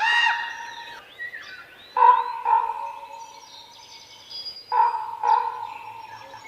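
Crow cawing: five harsh caws, one long one at the start, then two pairs about two and five seconds in. Fainter chirps of smaller birds sound between the caws.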